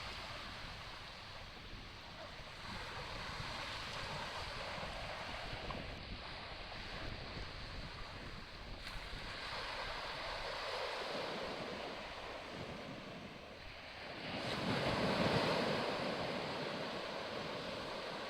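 Wind blowing on the microphone over the wash of sea water, with no engine tone standing out. It swells louder for a couple of seconds near the end.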